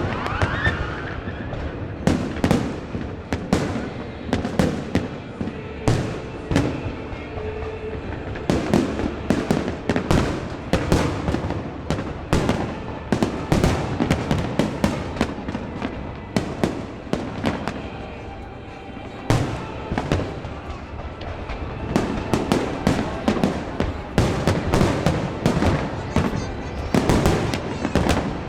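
Fireworks display: aerial shells bursting in a dense, continuous barrage of bangs and crackles, easing briefly about two-thirds of the way through before picking up again.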